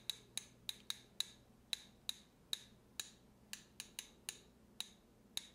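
A paintbrush tapped against the handle of another brush, giving light, sharp clicks about three times a second at uneven spacing; each tap knocks flecks of white paint off the bristles as spattered snow.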